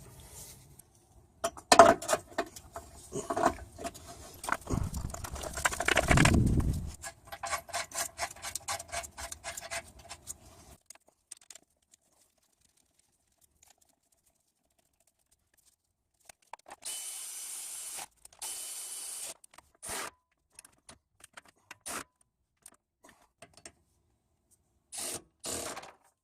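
Metal hand tools clinking and scraping on bolts at a car's lower engine mount, with a fast run of even ratchet clicks. After a pause come two short bursts of noise, then scattered clicks and two more short bursts near the end.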